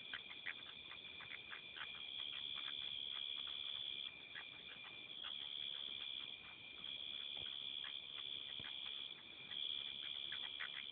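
Birds squabbling in the dark, which the recordist identifies as hawks fighting: a rapid string of short, harsh squawking calls, faint, over a steady high-pitched ringing drone that swells and fades every couple of seconds.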